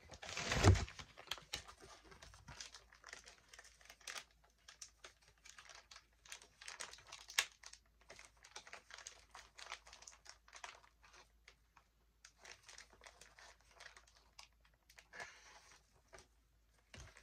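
Plastic food packets from a military ration being handled, crinkling and rustling in irregular bursts, with a bump about half a second in.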